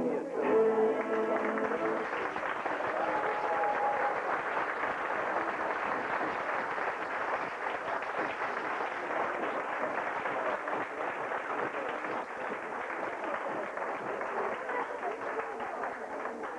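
A folk string band of fiddles and double bass plays its last notes about a second in, then a small audience applauds steadily.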